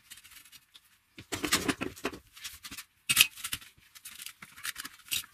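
Irregular scraping, clicking and knocking of hand work on a metal workpiece, with gaps between, and one sharp knock about three seconds in.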